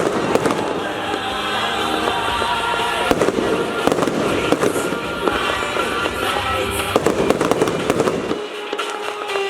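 Fireworks going off in many rapid sharp bangs over loud music.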